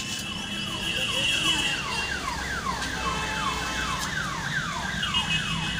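Electronic alarm siren cycling through its patterns. A steady high tone gives way to rapid falling sweeps, about three a second, and the steady tone returns near the end.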